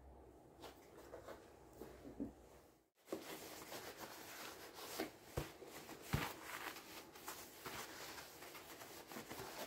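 Faint rubbing and rustling of an abrasive scotch pad and a cloth worked over a plastic scooter body panel, with a few light knocks as the panel is handled.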